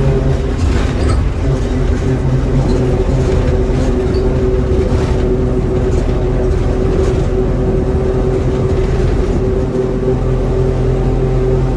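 Bus's Mitsubishi diesel engine running steadily under way with road noise, heard from inside the passenger cabin.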